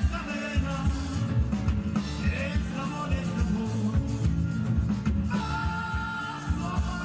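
Live rock band music: drums and bass keeping a steady beat under sustained guitar notes.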